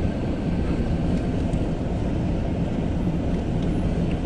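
Car engine and tyre rumble heard from inside the cabin while driving slowly over a cobbled street: a steady low drone with a faint constant hum.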